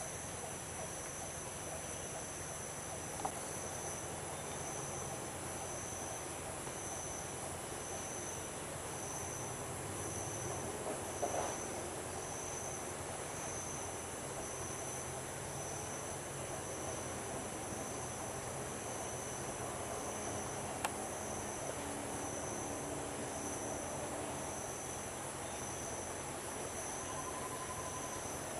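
Steady chorus of tropical forest insects: several shrill, unbroken high tones held together, the lowest of them pulsing about once a second. A few faint brief ticks stand out now and then.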